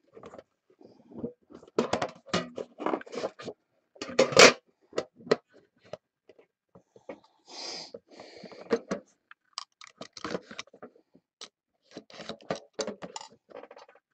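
Hands opening a trading-card box: irregular scrapes, clicks and knocks as the lid is worked off and the inner box is handled, with a brief rustle about halfway through.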